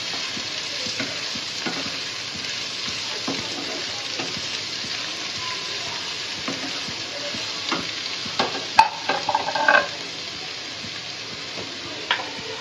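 Chopped onions sizzling in hot mustard oil in a nonstick frying pan, stirred with a wooden spatula that scrapes through them. A few louder knocks come about eight to ten seconds in, with one more near the end.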